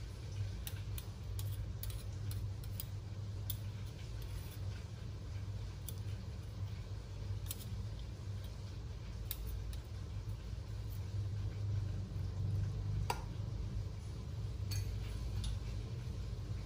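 Kitchen handling sounds: scattered light clicks and taps of kitchenware over a steady low hum, with one sharper clink about 13 seconds in.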